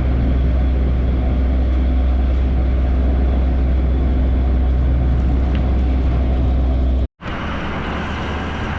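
Vehicle on the move: a steady engine and road rumble, heaviest in the low bass. About seven seconds in it cuts off abruptly and gives way to a somewhat quieter stretch of steady driving noise.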